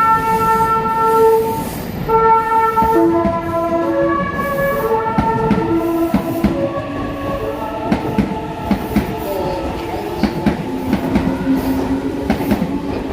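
Meitetsu 2000 series μSKY train sounding its musical horn, a short melody of held notes stepping in pitch. It is followed by the train running past, its wheels clicking over rail joints.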